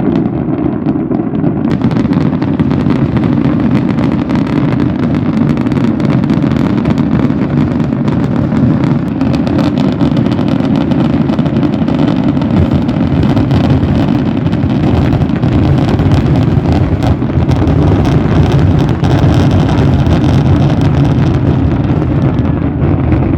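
Dense fireworks barrage: continuous low booming merges into a steady rumble, with sharp crackling over it from about two seconds in.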